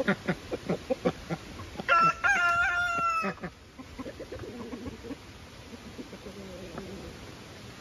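Rooster crowing once, about two seconds in, a single loud call lasting about a second and a half. Before it comes a quick run of short, low calls from the poultry in the pen.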